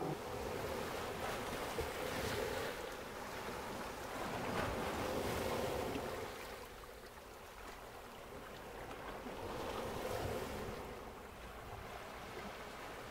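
Soft rushing of sea waves, swelling through the first half, swelling again about ten seconds in, then easing off.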